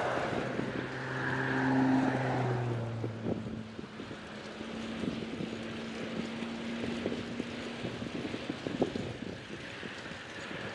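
Wind rushing over the microphone of a moving bicycle, with a motor vehicle passing: its engine hum is loudest about two seconds in and fades away. Scattered small clicks and knocks run through the wind.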